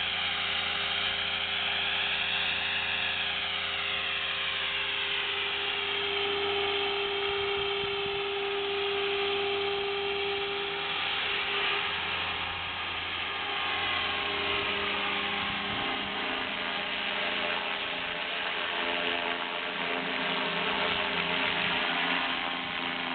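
Align T-Rex 500 electric RC helicopter flying: the brushless motor, geartrain and rotor blades make a steady whine whose higher tones slide up and down as it manoeuvres.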